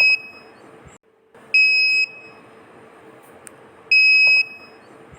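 An Arduino-driven alarm buzzer gives high-pitched electronic beeps, each about half a second long, repeating about every two and a half seconds. It sounds because the stored alarm time has matched the real-time clock's time.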